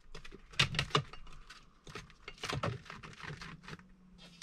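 Hands handling and pressing on a belt 3D printer's black conveyor belt, a quick run of small clicks, taps and rustles.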